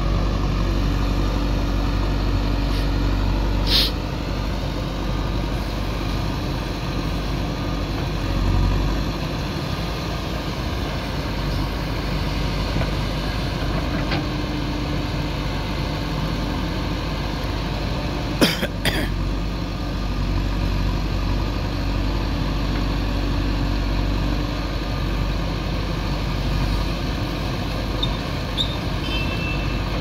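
Diesel engines of a backhoe loader and tractors running steadily at a worksite. There is a sharp knock about four seconds in and two more a little past halfway.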